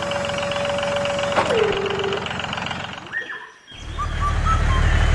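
A steady whine that slides down in pitch and stops about two seconds in; after a short break, an engine starts running with a low, even pulse.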